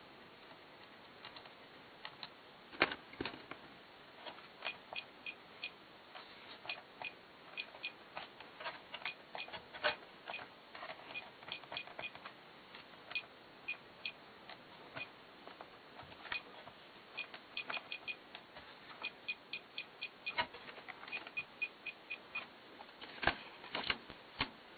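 Plastic push buttons on a Toyota climate-control and clock panel being pressed over and over, giving sharp clicks, single or in quick runs of several.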